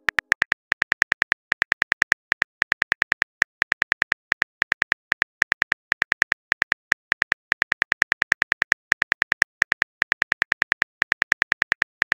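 Phone keyboard key clicks as a message is typed out letter by letter: a rapid, uneven run of short identical taps, about six or seven a second, broken by brief pauses.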